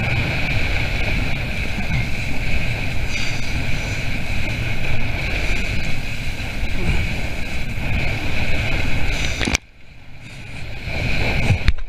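Wind buffeting the microphone and water rushing past the hull of a small sailing boat under sail, a steady loud rush. About three-quarters of the way through the sound drops away suddenly and then swells back up.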